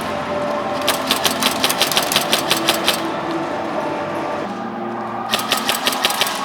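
Airsoft gun firing in two rapid bursts of sharp clicking shots, about six a second: a two-second burst about a second in and a shorter one near the end.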